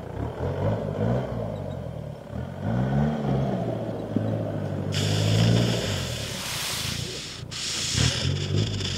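Off-road jeep's engine revving up and easing off repeatedly as it crawls over dirt mounds. A loud rushing noise joins over the second half.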